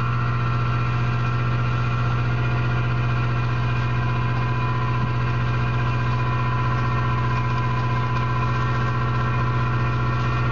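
Crab boat's engine machinery running at a steady idle: a constant low drone with a hum of steady tones above it, unchanging throughout.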